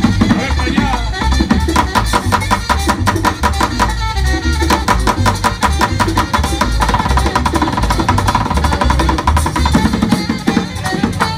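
Drumsticks beating plastic crates and an upturned plastic bucket played as a makeshift drum kit: fast runs of sharp strikes over a steady low bass beat.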